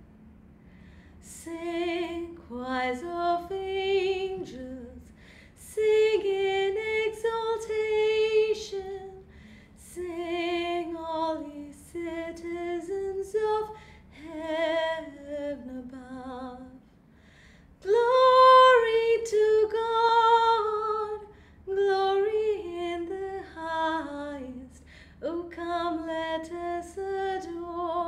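A woman singing a Christmas hymn solo and unaccompanied, in phrases of a few seconds with short pauses for breath.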